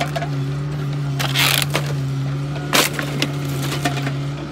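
Takeuchi excavator's diesel engine running with a steady drone while its arm pulls down a wooden timber frame: a splintering crunch of wood a little over a second in, a sharp crack near the middle, then a few smaller knocks of falling timber.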